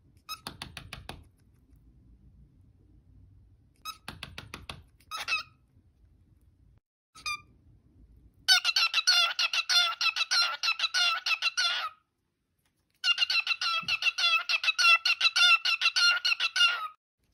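Pet cockatiel vocalising: a few short high calls, one of them a mimicked "hello", then the bird singing a rapid chattering warble in two long stretches of about three and four seconds with a brief pause between.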